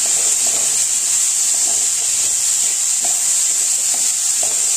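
Chopped vegetables and moong dal sizzling in hot oil in a kadhai as they are stir-fried with a spatula, a steady hiss with a faint stirring stroke every second or so.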